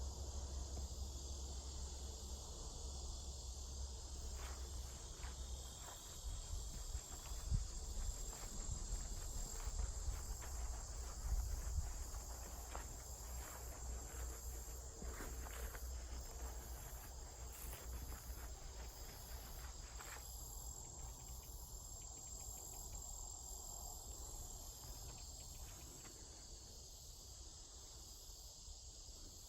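Steady high-pitched insect chorus droning through the woods, with scattered rustles and footsteps in the leaf litter. A low wind rumble on the microphone fades after the first several seconds.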